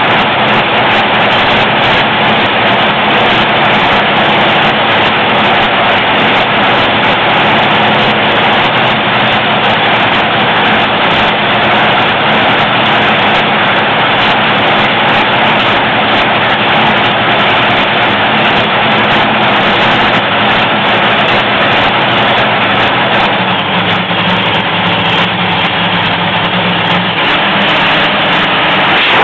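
Top Fuel dragster's supercharged, nitromethane-burning Hemi V8 running during a pit warm-up, loud and steady. About 23 seconds in it gets a little quieter and its note lowers.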